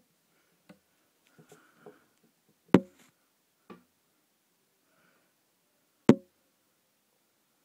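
Scattered clicks and taps of hard containers and tank parts being handled, with two loud, sharp knocks about three seconds apart, while a tarantula is coaxed from one enclosure to another.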